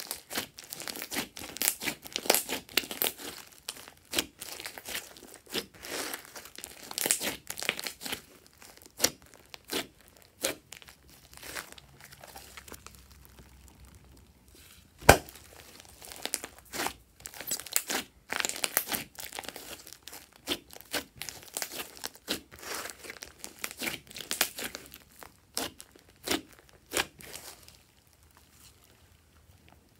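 Glossy slime with small beads mixed in, squeezed and stretched by hand: a run of wet crackles and pops, with one sharp pop about halfway through.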